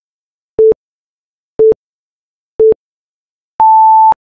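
Electronic countdown-timer beeps: three short beeps about a second apart, then one longer, higher beep as the timer reaches zero.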